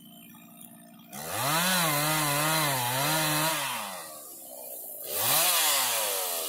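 Chainsaw revved from a low, steady idle up to full throttle about a second in, its pitch wavering for a couple of seconds before dropping back, then revved up and down once more near the end.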